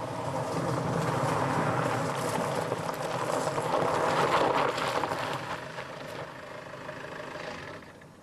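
A car driving up at night: steady engine and tyre noise that fades away near the end.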